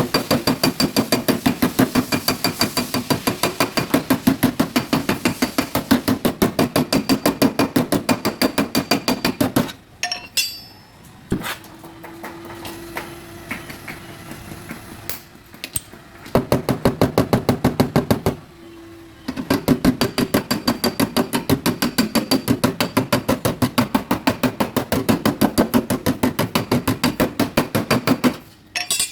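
Body hammer beating out the sheet-metal rear fender of a Mazda3: long runs of rapid, even strikes, several a second, with a metallic ring. About ten seconds in the hammering stops for several seconds with only a few single knocks, then starts again in two more runs.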